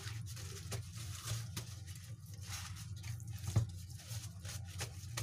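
Paper kitchen towel patting and rubbing a washed raw whole chicken dry on a wooden board: irregular soft taps, rustles and squishes of damp paper on wet skin, over a steady low hum.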